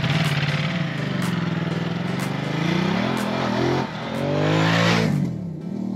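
Motorcycle engine running under way, its pitch climbing as it accelerates and then falling sharply about five seconds in.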